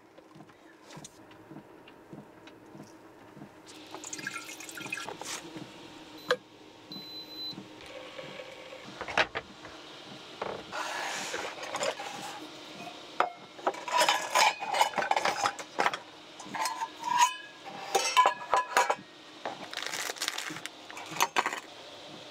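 Metal bowls and cups clinking and clattering as they are set down and handled on a wooden table, many separate taps with short ringing tones, busiest in the second half.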